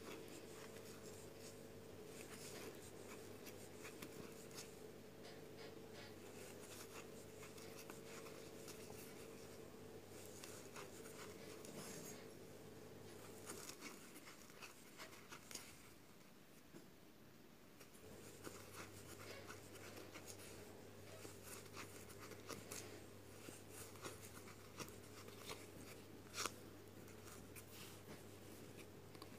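Faint rustling and small ticks of a crochet hook pulling white yarn through stitches, close to near silence. A steady low hum runs underneath and drops out for a few seconds about midway.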